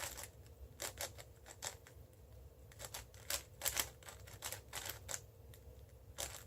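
Cubicle Labs WuShuang M 5x5 speedcube being turned fast by hand: quick, irregular plastic clicks and clacks of the layers snapping round, during the edge-pairing stage of the solve.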